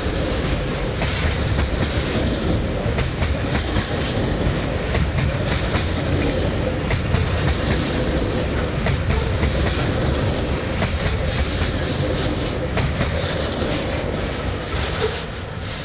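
Freight train of steel coal hopper wagons rolling past close by, the wheels clattering over the rail joints in a steady run of clicks. The noise fades near the end as the last wagon goes by.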